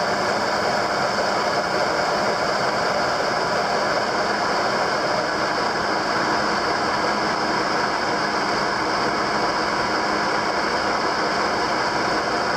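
Metal lathe running steadily with its four-jaw chuck spinning, the tool taking a facing cut across round stock as it feeds in toward the centre. An even machine hum with several constant tones and no change in level.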